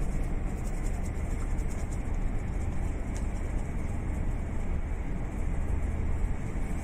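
Steady low rumble of room background noise, with faint soft rustling of hands being rubbed together with alcohol hand rub.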